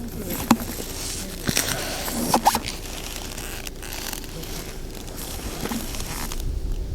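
Rustling and handling noise with a few light clicks and knocks, the sharpest about half a second in and others around one and a half and two and a half seconds.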